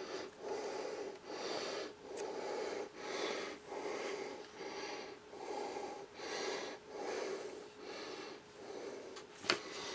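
A person breathing close to the microphone: an even run of soft breaths, about one every three-quarters of a second, with a short click near the end.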